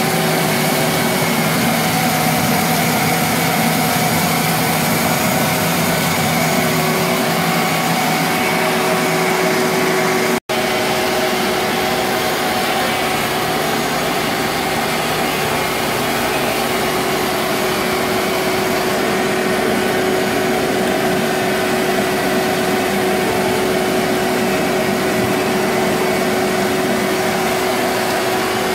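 A shop vacuum and a corded electric drill running steadily together. The drill turns a mill that cracks roasted cocoa beans, and the vacuum pulls air through the winnowing pipe to draw off the husk. The noise breaks for a split second about ten seconds in.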